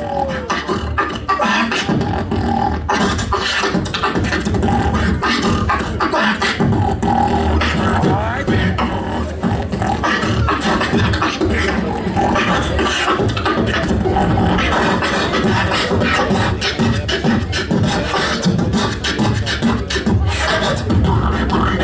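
Human beatboxer performing a solo into a microphone, amplified through the hall's sound system: a dense, continuous rhythm of vocal kick, snare and click sounds over heavy bass, with pitched vocal lines woven in.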